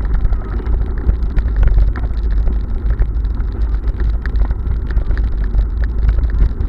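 Bicycle rolling fast over cobblestones, heard through a camera mounted on the bike: a steady low rumble with dense rattling clicks from the bumps of the stones.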